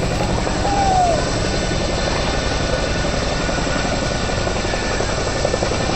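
Boeing CH-47 Chinook tandem-rotor helicopter running, a steady loud noise with a fast rotor chop. A brief falling whistle-like tone sounds about a second in.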